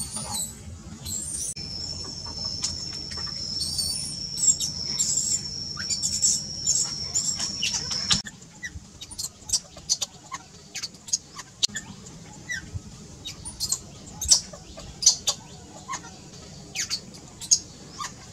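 Short, high-pitched animal chirps and squeaks, some sliding in pitch, coming thick and fast in the second half. Through the first half a steady high whine runs for about six seconds and cuts off suddenly.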